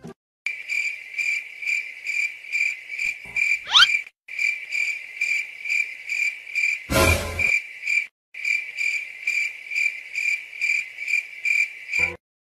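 Cricket-chirping sound effect for an awkward silence: an even, high chirp about three times a second, looping with short breaks about every four seconds. A quick rising whistle comes near four seconds in, and a brief noisy burst about seven seconds in.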